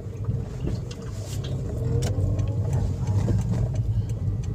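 Toyota Vios on the move, its engine and road noise heard from inside the cabin as a steady low hum, rising in pitch and getting louder about two seconds in.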